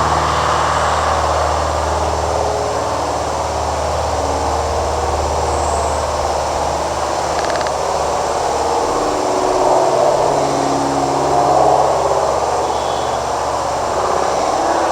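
Steady mechanical rumble, like an engine running, with a low hum that fades about halfway through.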